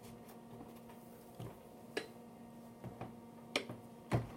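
A few light, scattered knocks and taps from foam inserts being handled and pressed into a hard plastic case, over a faint steady hum.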